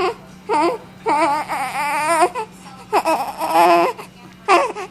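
A baby making high, wobbling, cry-like vocal noises in a string of calls. Two short calls come first, then two drawn-out wails of about a second each, then a short call near the end.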